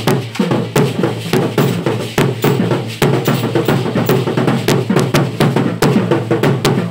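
Percussion music for an indigenous Guadalupe dance: a drum beating a fast, steady rhythm, with sharp clicking strikes several times a second.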